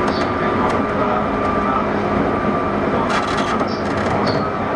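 Cabin running sound of a JR 201 series thyristor-chopper electric train, heard from inside a motor car: a steady rumble of wheels and traction equipment with a few faint steady tones. About three seconds in come a few sharp clicks, then a couple of brief high squeaks.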